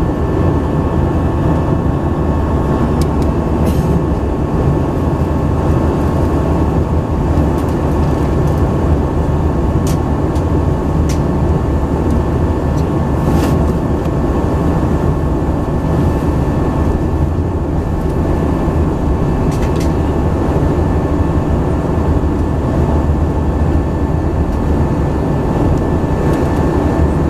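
Airbus A319 cabin noise in flight: the jet engines and airflow make a steady drone, with a faint steady whine above it. A few light clicks come and go.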